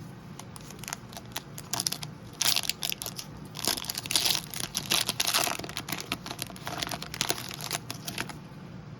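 Trading-card pack wrappers crinkling and cards being handled and flicked through, a dense run of crinkles and sharp clicks that is busiest in the middle and thins out near the end.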